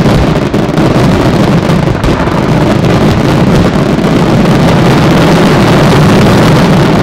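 Aerial firework shells bursting in a rapid, continuous barrage, the bangs running together into one loud, steady rumble.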